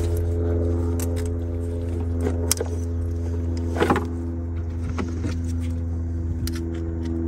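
Scattered clicks and knocks of plastic engine parts being handled as a PCV breather tube and its securing clip are fitted onto the union, with a sharper knock about four seconds in. Under them runs a steady machine hum with a few steady pitched tones.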